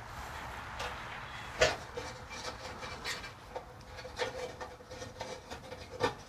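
Parts being handled as a headlight wire is fed through a truck grill: small clicks, scrapes and rubbing, with one sharp knock about a second and a half in.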